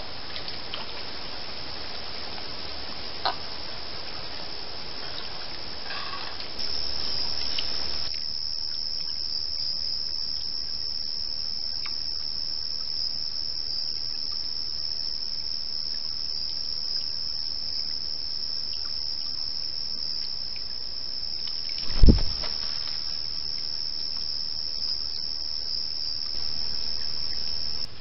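Crickets trilling steadily at a single high pitch, starting about six seconds in and cutting off abruptly near the end. A single loud low thump sounds a little over halfway.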